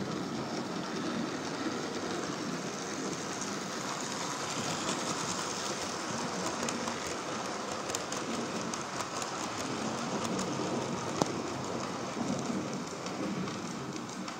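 Rain from a thunderstorm sound effect: a steady hiss of rain with a light crackle, and one sharp click about eleven seconds in.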